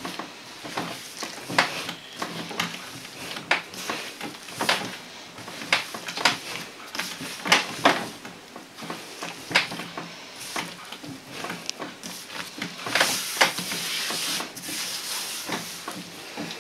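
Hands kneading a large mass of soft yeast dough, with soft slaps and presses about once a second.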